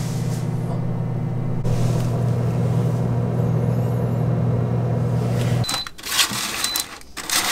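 DDO-LAB air fryer oven running with a steady low hum, which cuts off near the end as the cycle finishes. Short high beeps about a second apart follow, along with noisy handling sounds as a metal utensil works the food in the wire tray.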